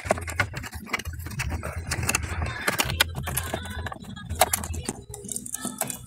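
Irregular clicks, knocks and light rattling from the plastic drain-pull linkage and top panel of a twin-tub washing machine being handled and taken apart.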